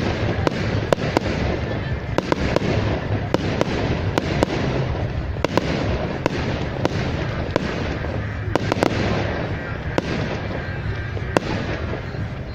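Fireworks going off continuously: a steady rumble of bursts with many sharp bangs and cracks at irregular intervals, sometimes several a second.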